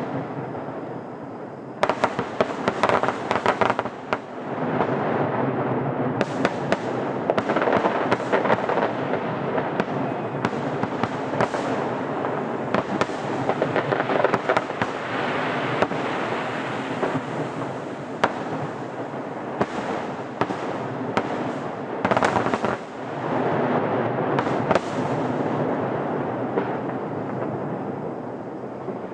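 A fireworks finale: rapid cracks and booms overlapping into an almost continuous rumble, with several dense salvos of crackling, easing off near the end.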